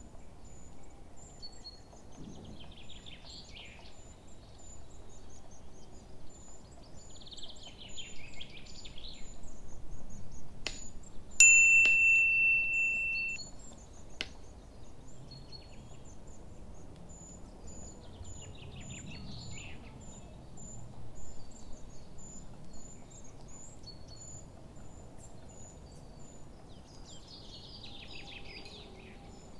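Small birds chirping in the background throughout, with a single bright ringing ding, the loudest sound, about eleven seconds in that fades over a couple of seconds, and a few sharp clicks around it.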